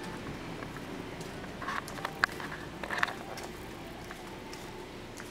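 Store ambience: a steady low hum with a few short clicks and rustles as someone walks the aisle, the loudest a sharp click about two seconds in.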